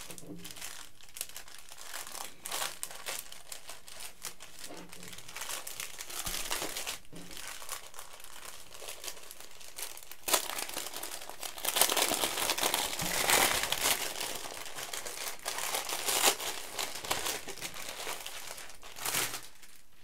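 A clear plastic packaging bag crinkling and rustling as it is handled and opened, with scattered sharp crackles. It grows louder and more continuous about halfway through and eases off shortly before the end.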